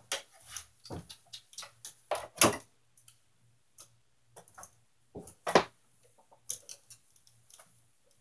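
Irregular clicks, taps and knocks of things being handled close by, with two louder knocks about two and a half and five and a half seconds in.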